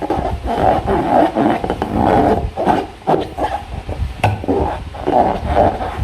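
Slime being squeezed and worked by hand, making a continuous irregular squelching with a sharp click about four seconds in.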